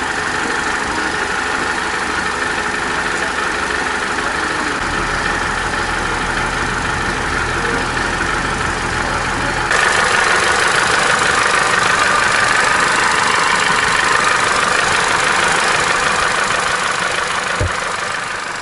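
Opel Corsa D's 1.4-litre A14XER four-cylinder petrol engine idling steadily. About ten seconds in, the sound changes abruptly and becomes brighter.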